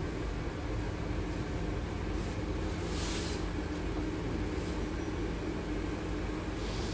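Scania N280UD double-decker bus's biogas-fuelled 9.3-litre five-cylinder gas engine idling with a steady low hum, heard inside the bus. A brief hiss comes about three seconds in, and a fainter one near the end.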